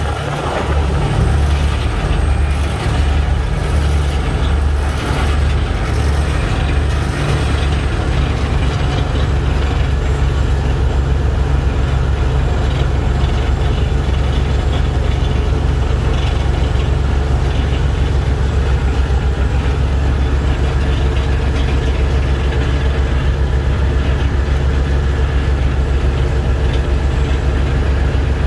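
Vehicle engine running steadily while driving: a strong, even low hum with road noise over it.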